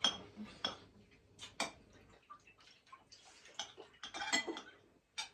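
Clinks and knocks of dishes and kitchen utensils being handled: a run of sharp taps, some with a short ring, busiest about four seconds in.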